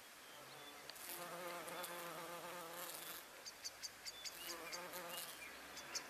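Faint buzzing of a bumblebee foraging in rhododendron flowers, its hum wavering in pitch. From about halfway, a run of short high ticks comes a few times a second.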